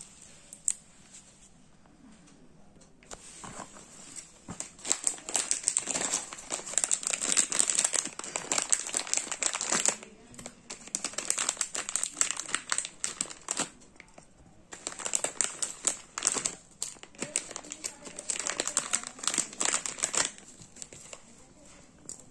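A thin clear plastic bag crinkling and rustling as hands open it and rummage inside, in three long bouts with short pauses between them.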